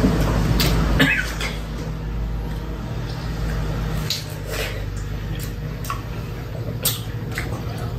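Two people biting and chewing slices of watermelon: scattered short mouth sounds of bites and chewing, over a steady low hum.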